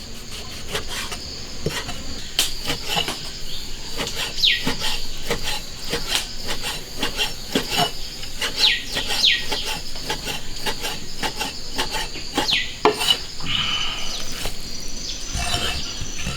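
Kitchen knife slicing beef tripe on a wooden chopping board: irregular knocks of the blade on the board. Crickets chirp steadily behind.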